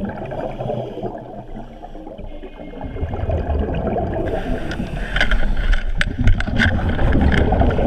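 Muffled underwater water noise against a camera, with a low rumble that grows from about three seconds in. From about four seconds in come crackling clicks and splashes of air bubbles churning at the surface.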